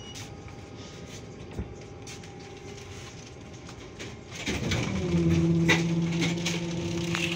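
Trolleybus heard from inside the passenger cabin: a steady rumble and rattle, then about four and a half seconds in a louder steady low hum starts up, with a few clicks and knocks over it.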